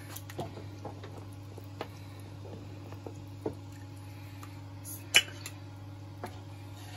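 A ladle or spoon working through the cooked paya in its pot, with scattered soft clicks and one sharp clink against the pot about five seconds in, over a steady low hum.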